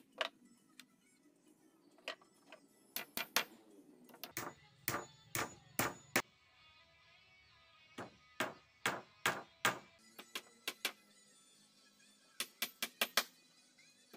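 Claw hammer driving nails into a wooden cabinet frame: irregular runs of quick, sharp blows with short pauses between them, over background music.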